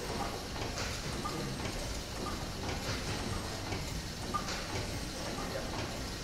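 Large stationary engine and its direct-coupled generator running steadily, a continuous mechanical noise with light, irregular clicks.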